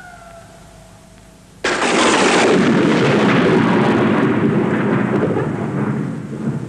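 A falling, howl-like tone dies away, then about one and a half seconds in a sudden loud thunder-like crash breaks in and slowly fades, rumbling on for several seconds.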